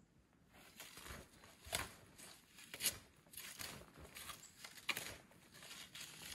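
Footsteps crunching through deep snow, an irregular run of faint crunches with a few louder ones about two, three and five seconds in.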